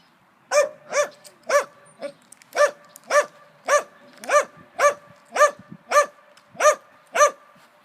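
A dog barking repeatedly and steadily, about thirteen barks at roughly two a second. A faint ringing tone at the pitch of the barks hangs on between them.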